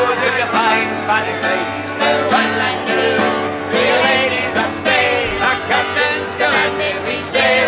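Several voices singing a folk song together over a strummed acoustic guitar.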